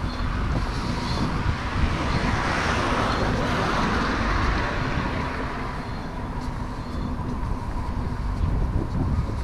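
City road traffic with a steady low rumble, and one car passing close by, its tyre noise swelling and fading over a few seconds.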